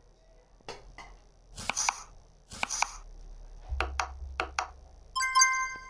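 A series of sharp taps and knocks, some in quick pairs, followed about five seconds in by a bright ringing ping that holds several steady pitches.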